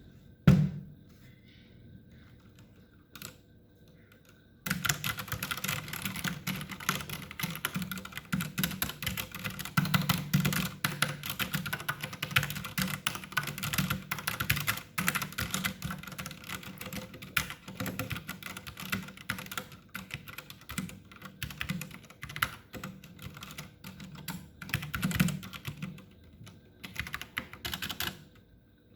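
AKKO 3087 mechanical keyboard being typed on, a fast run of key clicks that starts about five seconds in and stops just before the end. A single loud click comes just after the start.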